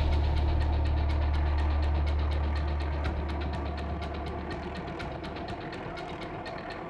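Helicopter rotor beating rapidly, about six beats a second over a deep engine drone, getting quieter after about three seconds.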